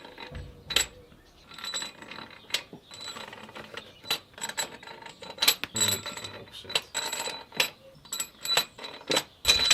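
Irregular sharp metallic clinks and taps of new steel cylinder head bolts being handled and set into the bolt holes of a Volvo 850 cylinder head.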